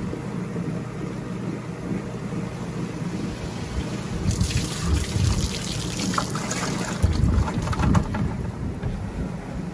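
Water splashing and running off as live shrimp are tipped from a perforated dip basket into a bucket of water, starting about four seconds in and lasting a couple of seconds, with a few drips after. A steady low rumble runs underneath.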